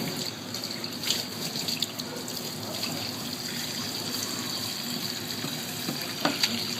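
Water running steadily from a tap, with a few light knocks about a second in and twice near the end.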